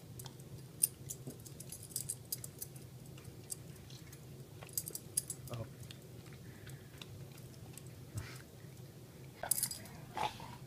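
A dog's metal collar tags clinking in small irregular jingles as a Labrador retriever noses and mouths at a mandarin orange, over a steady low hum. A brief louder sound comes near the end.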